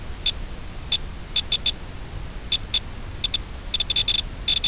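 Steady static hiss from an analogue FPV video receiver's audio channel. Over it come a dozen or more short, high pips at irregular intervals, bunched more closely near the end.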